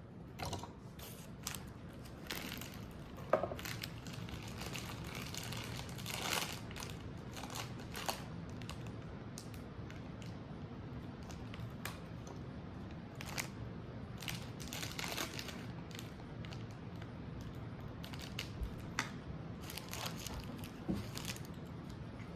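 Plastic packaging crinkling and small plastic kit pieces clicking and snapping as they are handled and fitted together, in scattered irregular clicks and rustles over a low room hum.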